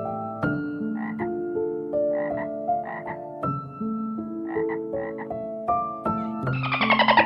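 A frog croaking in short double croaks, repeated about once a second, over long held musical notes. Near the end a denser, buzzier sound comes in.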